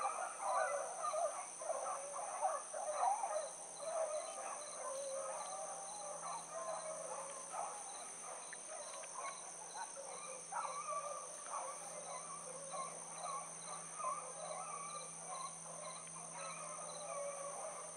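A pack of rabbit hounds baying as they run a rabbit's trail, many voices overlapping. The baying is louder in the first few seconds, then eases off.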